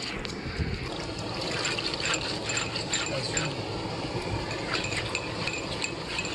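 Hands rubbing and scraping small river fish against a wet rock to strip off the scales, a run of short scraping strokes in two spells, over the steady wash of river water.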